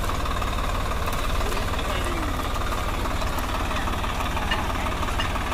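Swaraj 744 FE tractor's three-cylinder diesel engine running steadily.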